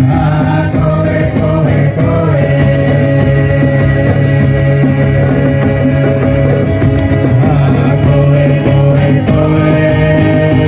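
Background music: guitar with a singing voice over sustained held notes.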